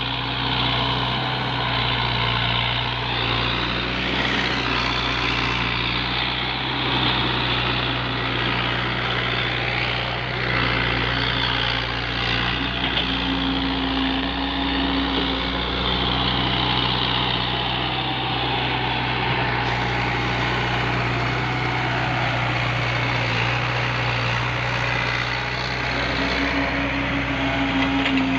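Mini excavator's diesel engine running steadily through the work, with a constant low drone and a higher tone that swells briefly around the middle and again near the end.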